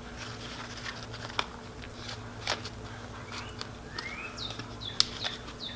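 Plastic face-shield pieces being handled and slotted together: scattered clicks and taps, with several short squeaks of plastic rubbing on plastic in the second half, over a low steady hum.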